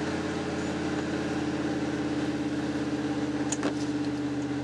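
Steady drone of the 1994 Ford F-150's 5.0 L V8 and drivetrain while driving, heard inside the cab. About three and a half seconds in, a windshield wiper blade sweeps across the wet glass with a short squeak.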